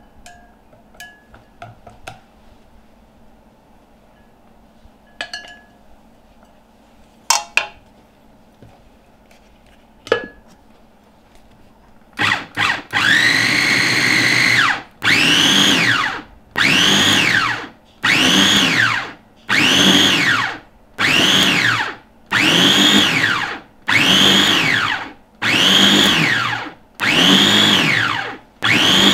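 Electric mini food chopper run in pulses, about a dozen short bursts of motor whine, each rising and falling in pitch, as it grinds dried shredded chicken floss. Before the pulsing starts, about twelve seconds in, there are scattered light clicks and taps as the floss is spooned into the glass bowl and the lid is set on.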